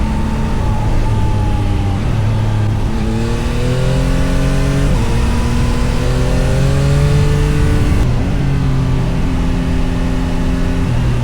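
Yamaha MT-09 SP's 890 cc inline-three engine pulling hard on the road. The pitch climbs for about two seconds, dips sharply at an upshift about five seconds in, and climbs again. About eight seconds in it drops as the throttle eases, then holds steady.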